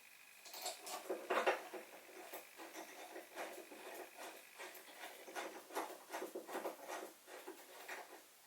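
Light, irregular clicks and taps of metal parts being handled as a motorcycle exhaust end can is hung on its rear mount and its mounting bolt started with an Allen key, with a louder cluster of knocks about a second and a half in.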